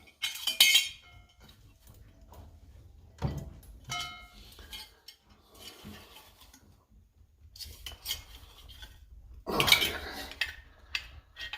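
Small metal stove parts clinking and scraping together as they are handled and screwed back into place. There are short ringing clinks near the start and again about four seconds in, and a louder scrape near the end.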